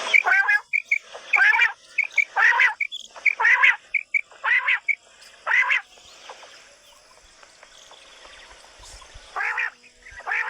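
Quail calling: a run of six short calls about a second apart, with brief thin notes between them, then a pause and two more calls near the end.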